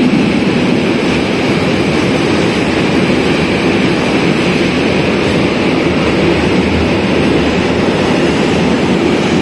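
Freight train of container wagons rolling through an underground station at speed: a loud, steady rumble and rush of steel wheels on rail, held in by the enclosed platform.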